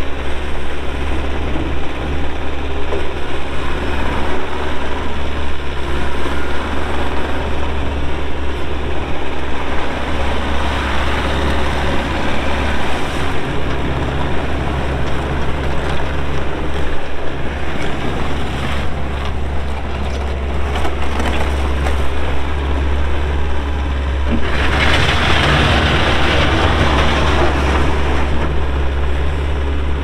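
Bobcat T590 compact track loader's diesel engine running steadily with a deep hum as the machine drives and turns. About 25 seconds in the sound grows louder and hissier for a few seconds, then settles back.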